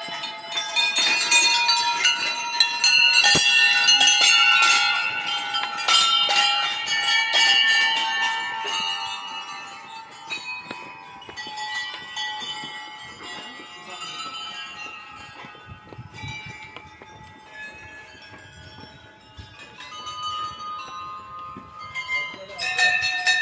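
Many temple bells being rung, struck again and again and ringing over one another at different pitches. They are thickest and loudest for the first ten seconds or so, thin out, then pick up again near the end.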